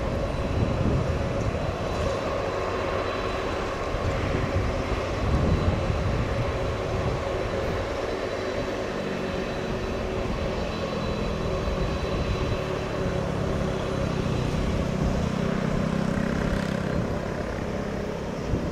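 Boeing 767 freighter's twin turbofan engines running at low taxi power: a steady jet whine with a thin high tone over a low rumble, the rumble building a little in the second half.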